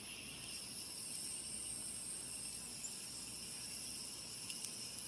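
Steady, faint chorus of summer insects trilling, with several high-pitched bands holding at an even level.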